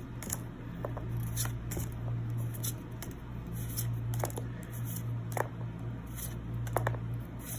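Pokémon trading cards being slid one at a time from a hand-held stack, giving short papery flicks and rustles at irregular spacing over a steady low hum.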